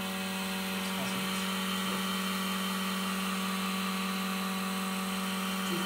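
Electric vacuum pump running with a steady, even hum, holding vacuum on a bagged carbon fibre layup during resin infusion.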